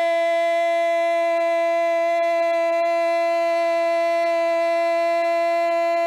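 A male football commentator's long, loud goal cry: the vowel of "gol" held on one steady pitch without a break.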